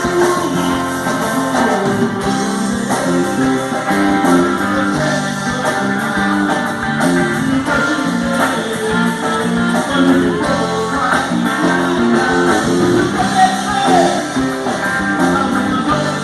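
Song with strummed and plucked guitar carrying the tune, with no sung words in this stretch.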